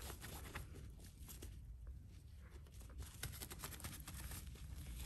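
Faint rustling and scattered light scratches of a fabric cat tunnel as a cat moves about inside it.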